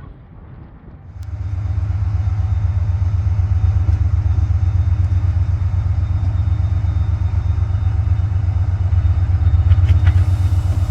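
Diesel locomotive engine running with a low, pulsing rumble that starts abruptly about a second in and then holds steady.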